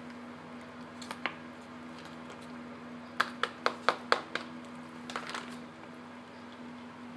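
Cat eating from a plastic bowl: two sharp clicks about a second in, then a quick run of about six crunching clicks near the middle and a softer cluster a second later, over a steady low hum.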